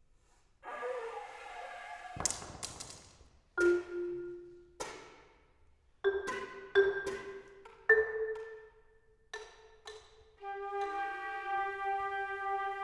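Flute and marimba playing together in a sparse duet. After a moment's silence the flute holds a soft note, broken by about ten sharp, ringing marimba strikes at uneven intervals. Near the end the flute settles into a long held tone.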